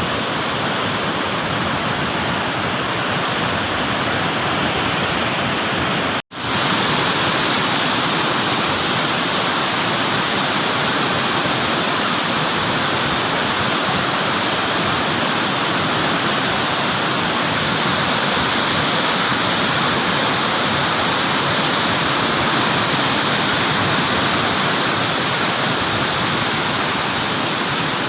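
Flood water rushing through the open radial gates of a dam spillway: a loud, steady rush of water. It breaks off for an instant about six seconds in, then resumes a little louder.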